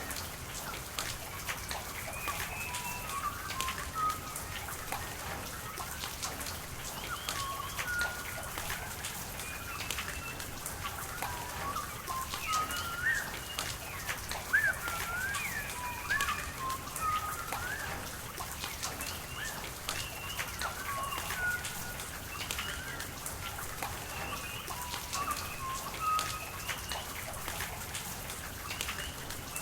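Steady rain with running water, drops ticking sharply throughout, and birds chirping and calling over it in many short, rising and falling whistled notes.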